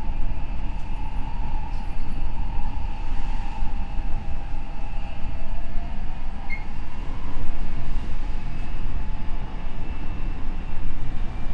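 Odakyu 5000 series (second generation) electric train running on the rails: a steady low rumble of wheels and track, with a faint whine from its Mitsubishi SiC inverter-driven motors that slides down in pitch and fades about six seconds in.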